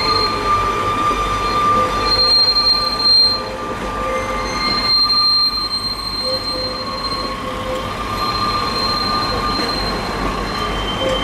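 A train moving at low speed with steady squeals from its wheels over a low rumble. Several squeal tones at different pitches fade in and out throughout.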